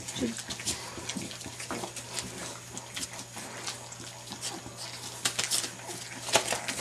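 Five-week-old English bulldog puppies moving about on newspaper: irregular rustling and crackling of the paper, with a few small grunts from the puppies.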